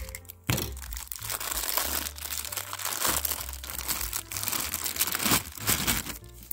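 Clear plastic packaging bag crinkling and rustling as it is handled and pulled open by hand, in quick irregular bursts. A sharp cut from snips through the wrapping opens it.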